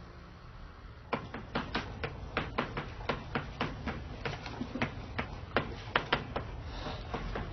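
Rapid, irregular sharp taps and clicks, several a second, beginning about a second in over a low steady hum.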